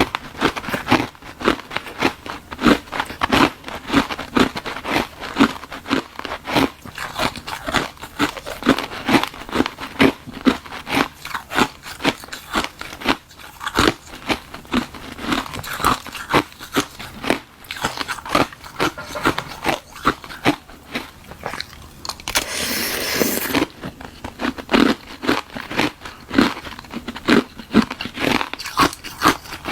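Close-miked biting and crunching of frozen tartary buckwheat tea ice, a few sharp crunches a second as pieces break and are chewed. A short hissing noise comes about 23 seconds in.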